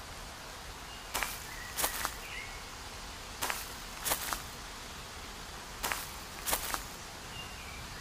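Footsteps swishing through dry grass, in three pairs of steps, each pair about two-thirds of a second apart. A few faint, short bird chirps come in between.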